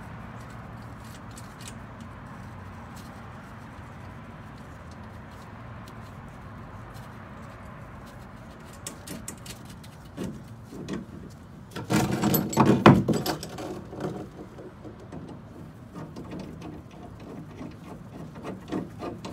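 Light clinks and rattles of metal parts being handled as a steering-column drop clamp is fitted to the steel dash bar. A louder burst of clattering comes about twelve seconds in, over a steady low room hum.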